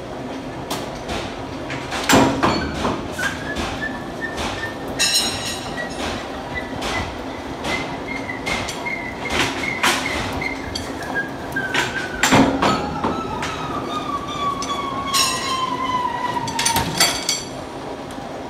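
Metal lathe cutting a steel round bar: a steady motor hum under a long whine from the cutting tool that rises at first, then slides slowly down in pitch and stops near the end. Sharp metal clanks from the handwheels and tool slide being worked, loudest about two seconds in and about twelve seconds in, with short rattles of metal swarf.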